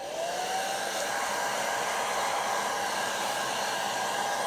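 Conair 1875 hand-held hair dryer running on its low setting: a steady rush of air with a motor whine that rises in pitch as it spins up in the first half second, then holds steady.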